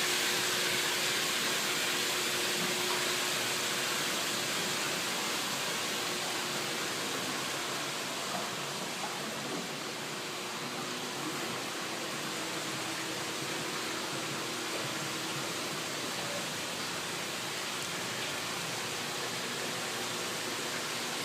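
Steady rushing hiss of background noise, a little louder near the start, with a faint low hum under it.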